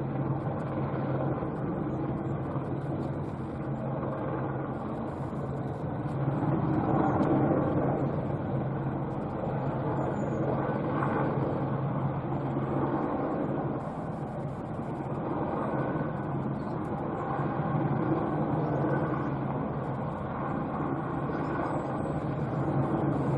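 Eurocopter Squirrel helicopter hovering: a steady rotor and turbine drone with a low hum, swelling and easing slowly in loudness a few times.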